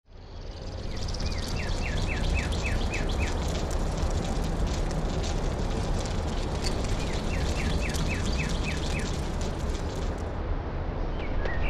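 Campfire crackling over a steady outdoor hiss, fading in at the start, while a bird calls twice in runs of about seven quick, falling chirps. The crackling stops shortly before the end, and a different bird chirps near the end.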